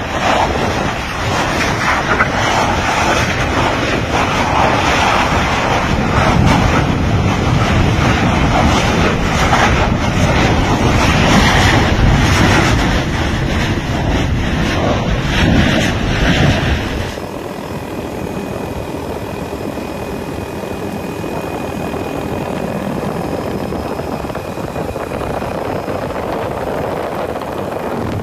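Steady roar of lava fountaining from an erupting Kīlauea fissure. It drops suddenly to a quieter steady noise about two-thirds of the way through.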